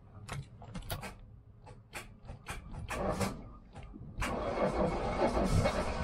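Sailboat's inboard engine being started with the key: the starter gives a run of irregular clicks and short turns, then about four seconds in it cranks and the engine catches and keeps running with a steady, louder sound. The starter's clicking is the sign of what the owner calls a sketchy starter.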